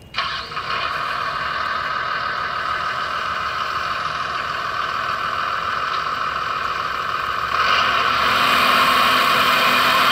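The hydraulic pump of a radio-controlled Liebherr 960 SME scale excavator starts suddenly and whines steadily as the boom and bucket are worked. It gets louder about three quarters of the way through, as the loaded bucket is lifted.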